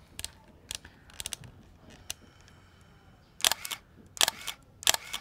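Canon EOS 500N film SLR body clicking as its controls are worked: a few light clicks, then a run of four sharp mechanical clacks about two-thirds of a second apart in the second half.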